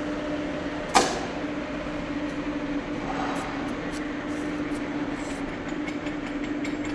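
Workshop machinery running with a steady hum, with one sharp knock about a second in and a few light clicks later.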